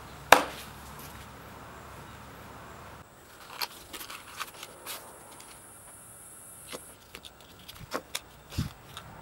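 Hands handling and opening a small cardboard product box on a concrete floor: one sharp knock just after the start, then a run of light clicks, taps and rustles of card and packaging as the tool is slid out of its insert.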